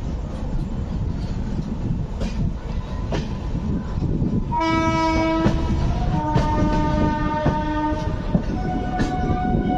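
Rumble and wheel clatter of a moving passenger train, heard from an open coach door, with clicks over the rail joints. From about halfway in, a train horn sounds in several long blasts, each at a different pitch.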